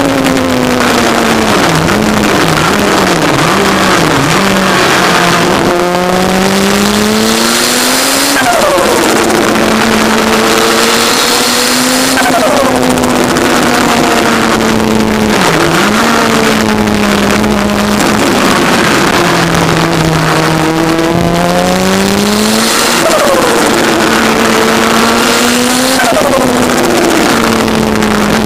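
Turbocharged Kawasaki ZX-10R inline-four motorcycle engine in an MK Indy kit car, heard onboard under hard driving. Its note climbs with the revs and falls sharply several times as it shifts or lifts off, with a hiss that comes and goes over it.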